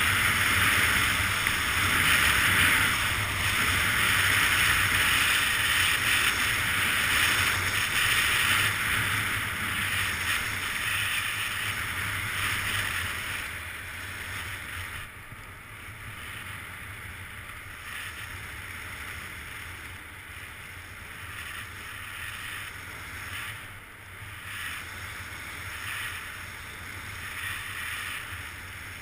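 Steady scraping hiss of snow under a skier sliding down a groomed run, with a low rush of wind on the GoPro's microphone. Louder for the first half, softer from about halfway on.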